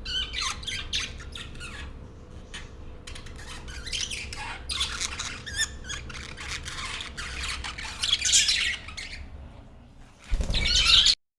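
A flock of budgies chirping and squawking in quick, overlapping calls. Near the end comes a louder burst with a low rumble, then the sound cuts off suddenly.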